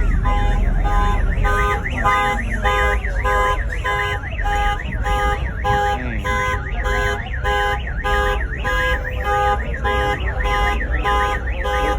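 Car alarm sounding: a fast two-tone warble with chirping glides, repeating about twice a second, over a low rumble.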